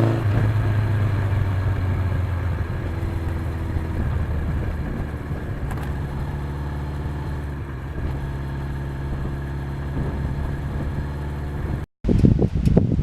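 Suzuki GS1100E's air-cooled inline-four engine running at a steady, nearly even pitch; it cuts off abruptly near the end.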